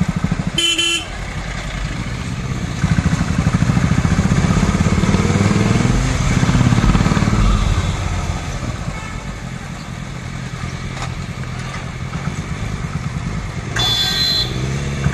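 Motorcycle engine running while riding through street traffic, louder for a few seconds early in the middle. A vehicle horn honks briefly about a second in and again near the end.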